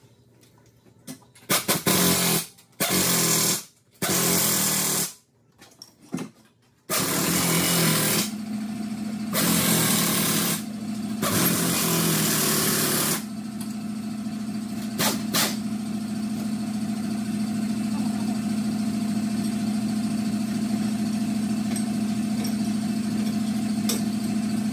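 An air-powered tool on a hose fires in a string of loud bursts, each about a second long, while bolts are run in on a tractor's loader mounting frame. About eight seconds in, a steady machine hum starts and carries on.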